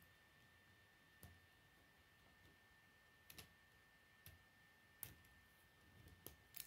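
Faint, irregular clicks of K'nex plastic rods and connectors being handled and snapped together, a few sharp clicks spaced a second or so apart with a small run of them near the end, over a faint steady high whine.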